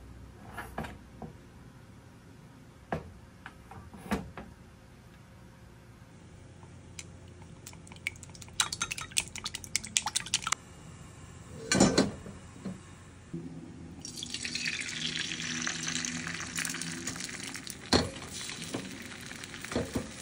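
Light clicks and clinks of kitchenware, with a run of quick clicks and one louder knock, then beaten egg sizzling in a hot rectangular tamagoyaki pan from about two-thirds of the way in.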